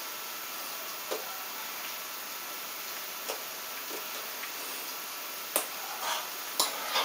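Steady hiss with a handful of soft clicks and taps from hands meeting during sign language, the two sharpest about five and a half and six and a half seconds in.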